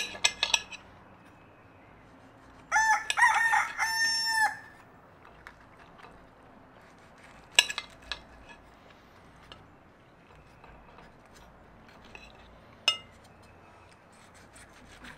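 A rooster crows once, about three seconds in: a loud pitched call of several notes lasting nearly two seconds. A few sharp clicks of a knife against a plate come at the start, around the middle and near the end.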